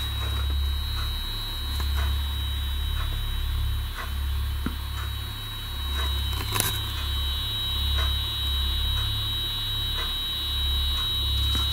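Ghost-hunting spirit box (radio-sweep device) running: a low electrical hum that cuts in and out every second or so, over a steady high whine, with a few faint clicks.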